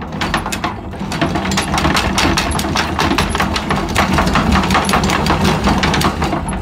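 Anchor windlass hauling in the anchor chain, the links clacking over the gypsy in a rapid even run of about five a second, with a low steady hum underneath.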